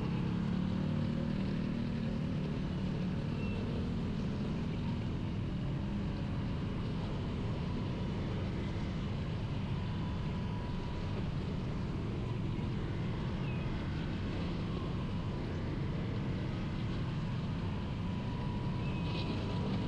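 Motorcycle underway in traffic: steady engine and road rumble with no change in pace.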